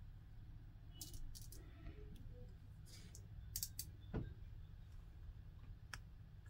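Faint handling noise: a few light clicks and taps and one soft low thump about four seconds in, over a low steady hum.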